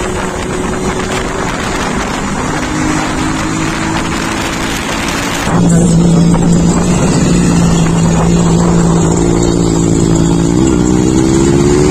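Motorcycle engine running on the move with road and wind noise. About halfway the sound changes abruptly to a steadier engine note, which rises in pitch near the end as the engine speeds up.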